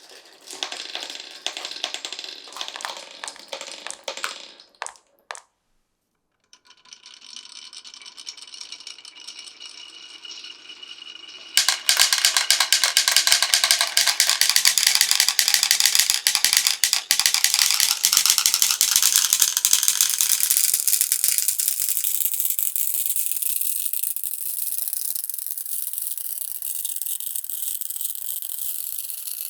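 Marbles rolling and clattering along a wooden and plastic marble run. After a short silent break they roll steadily with a faint ringing tone. About eleven seconds in a sudden loud clatter of many marbles sets in and slowly dies down.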